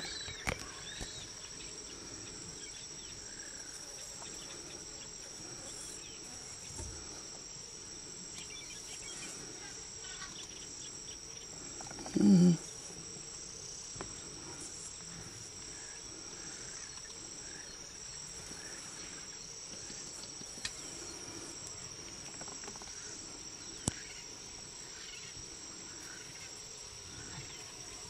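Crickets chirring steadily in a high, unbroken trill. About twelve seconds in, a single brief, loud, low call falls in pitch.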